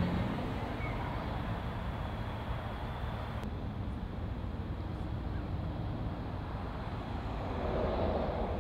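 Steady outdoor background noise, a low rumble with hiss; the hiss drops off suddenly about three and a half seconds in.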